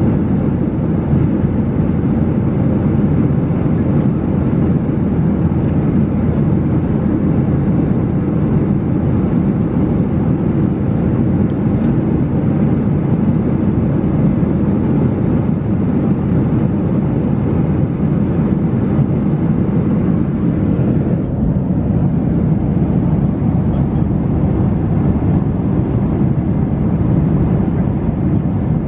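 Steady cabin noise of a Boeing 737-800 in flight, heard from a seat inside the cabin: a constant low rush of airflow and engine noise.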